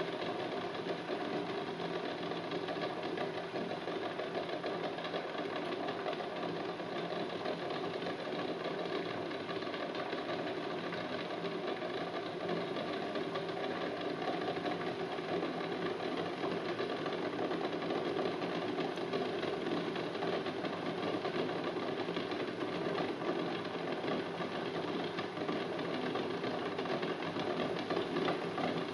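Saucepan of water boiling hard with eggs in it: a dense, rapid bubbling and rattling that grows a little stronger near the end as the boil jostles the eggs against the pan.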